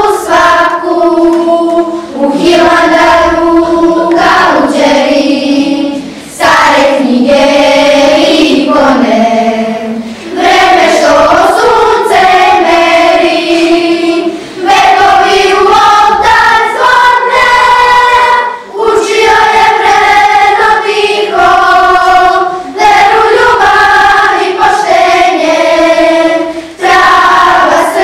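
Children's choir of schoolgirls singing, held notes in phrases of about four seconds with short breaks for breath between.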